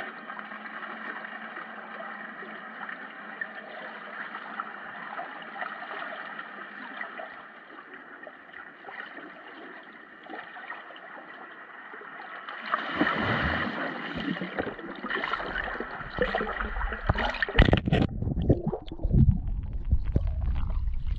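Seawater heard through a submerged action camera's microphone: a steady muffled hiss. About thirteen seconds in it turns louder, with deep, uneven churning and splashing of water around the camera.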